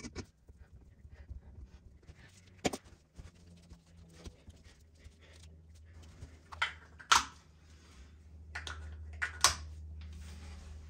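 Hands working at the base of a porcelain toilet bowl: a few sharp clicks and knocks, the loudest about seven seconds in, over a low steady hum that grows louder near the end.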